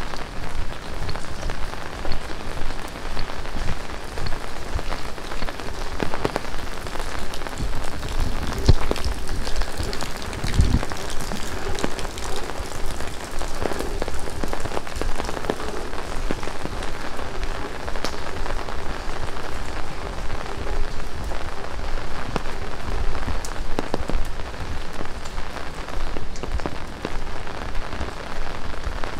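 Heavy rain pouring steadily, with many close, sharp drop strikes on nearby surfaces. A few low thumps come through it, the strongest about ten seconds in.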